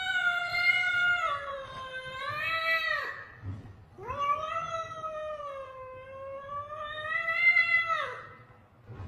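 A cat yowling defensively: two long, drawn-out yowls, each wavering in pitch. The first ends about three seconds in, and the second lasts about four seconds after a short pause.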